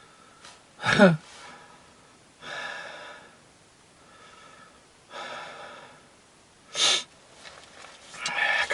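A man breathing heavily and evenly, catching his breath after exertion, with a short louder gasping exhale about a second in and another near seven seconds.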